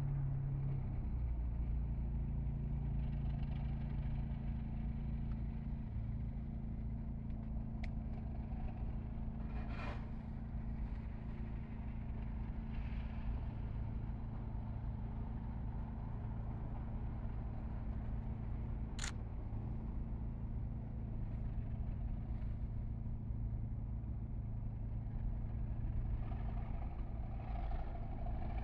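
Two Class 37 diesel locomotives (97302 and 37254), each with an English Electric V12 engine, idling while standing at a signal, a steady low engine throb. The sound grows slightly louder near the end.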